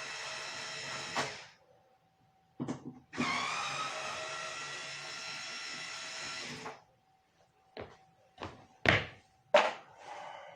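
Cordless drill/driver running in two spells of a few seconds, backing out screws from the dryer's panels, its motor whine rising as it spins up the second time. Then several sharp knocks and clatters of metal parts being handled.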